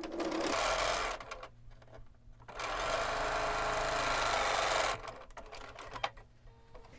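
Bernina B 770 Quilters Edition sewing machine stitching a seam in two runs: a short one of about a second, then, after a pause, a longer one of about two seconds.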